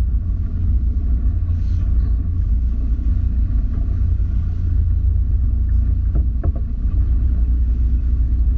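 Small motorboat running at speed: a steady, loud low rumble of wind buffeting the camera microphone over the engine and water rushing past the hull.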